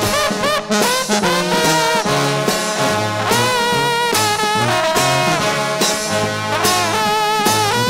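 Trombone shout band playing a lively gospel number: massed trombones with sliding glides between notes over a stepping bass line.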